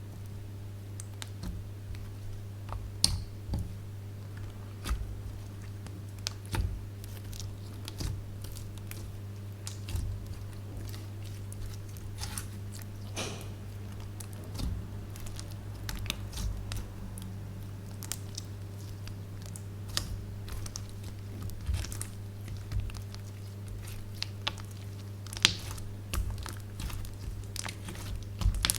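Slime being kneaded and squished by hand, with scattered crackles and pops at an uneven pace, over a steady low hum.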